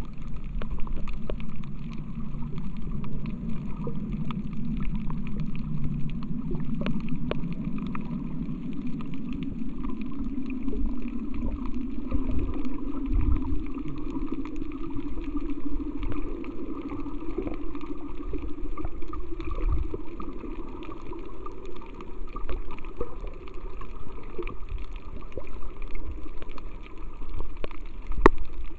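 Muffled underwater sound picked up by a camera held under the sea: a low hum that slowly rises in pitch over the first two-thirds or so, with scattered sharp clicks and low thumps.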